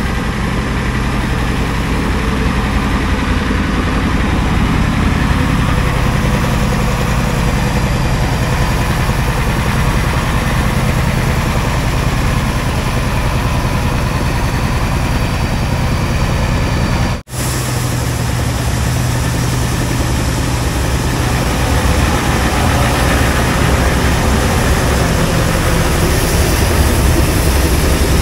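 Turbocharged 7.3-litre IDI diesel of a 1992 Ford F-Super Duty service truck running steadily at low speed in low-range four-wheel drive. The sound drops out for a moment about 17 seconds in.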